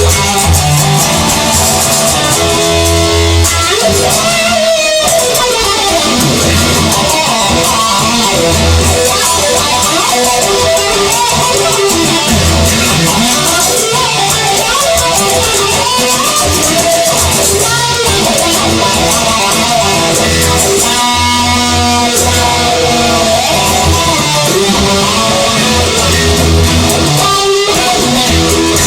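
Instrumental blues break: guitar playing over a steady bass line.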